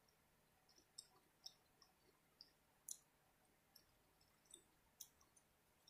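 Faint, sparse mouth clicks and smacks of someone chewing food with her mouth closed: about a dozen short, irregular ticks.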